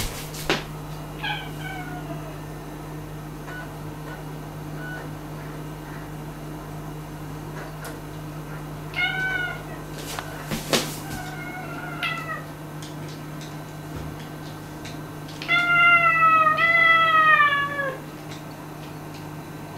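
A domestic cat meowing: a short meow about a second in, two more around the middle, then a long, loud meow near the end that wavers and falls in pitch. A few sharp knocks and a steady low hum underneath.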